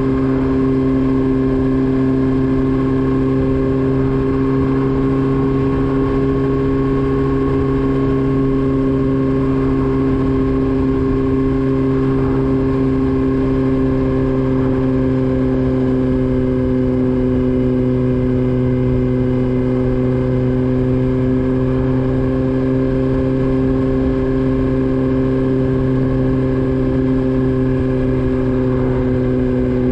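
Motorcycle engine running steadily at an even cruising speed, its pitch holding level and sagging slightly near the end as the revs ease off, over a low rumbling noise.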